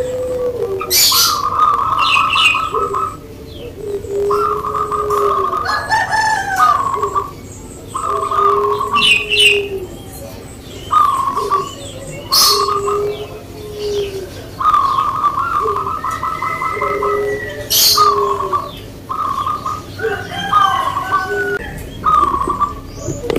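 Zebra doves (perkutut) cooing in full song, their rhythmic call of quick pulsed notes and lower rounded coos repeating every three to four seconds. Sharp high chirps come in between.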